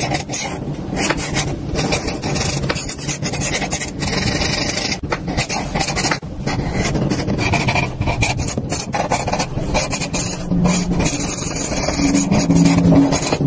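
Ballpoint pen scratching across paper in quick strokes, with short breaks where the pen lifts.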